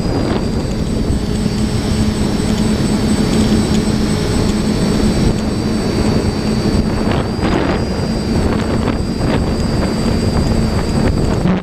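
DJI FPV drone's motors and propellers running in flight, a steady high whine over a low hum and a rush of air, the whine shifting slightly in pitch with throttle.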